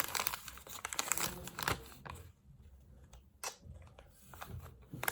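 Plastic blind-bag packets of collectible toys crinkling as they are handled, busy for the first two seconds, then only a few scattered rustles and clicks.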